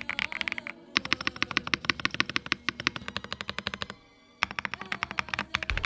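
Rapid typing on an Ajazz AK650 mechanical keyboard with PBT keycaps over Dreamweaver switches: a fast run of clacking keystrokes that stops briefly about four seconds in, then starts again. Background music plays underneath.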